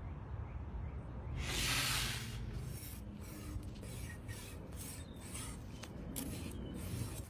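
A short, loud hiss about a second and a half in, then repeated scraping strokes of a chef's knife cutting around a raw chicken drumstick against a cutting board.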